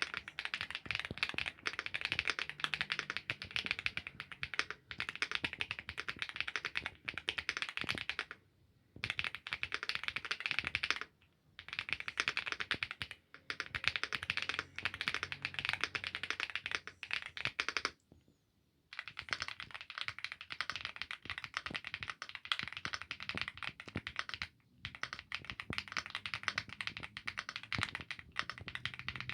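Fast, continuous typing on a fully foamed mechanical keyboard with an FR4 plate: dense key clacks, broken by short pauses a few times.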